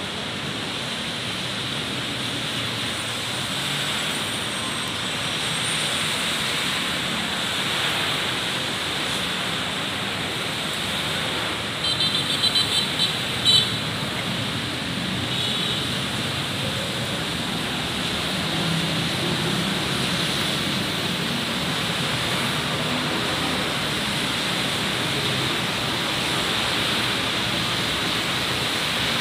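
Steady hiss of rain and of traffic driving on a wet city road. About twelve seconds in, a quick run of short, shrill, high-pitched sounds stands out, with one more a couple of seconds later.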